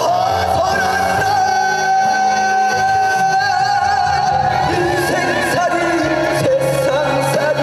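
A male singer holds one long note over backing music, with a vibrato coming into it partway through, then moves down to a lower phrase near the end.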